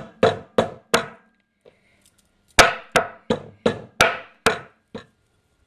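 Wooden meat mallet pounding shiitake mushroom stems on a wooden board: about four strikes, a pause of about a second and a half, then about seven more, roughly three a second.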